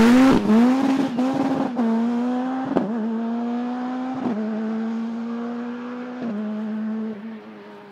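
Škoda Fabia S2000 rally car's engine accelerating away hard, its pitch climbing and then dropping at several quick upshifts, fading steadily into the distance.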